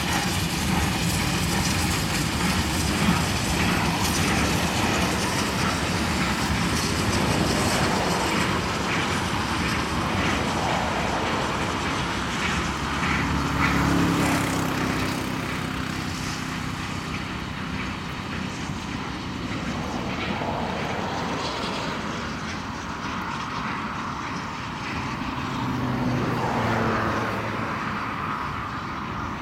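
Steam locomotives Ka 942 and Wab 794 working a train past, heard through a steady rushing noise that rises and falls a little.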